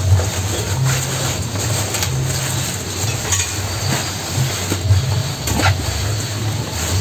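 Cattle feeding on chopped green grass stalks at a trough: crunching and rustling with a few sharp snaps, over a steady low rumble.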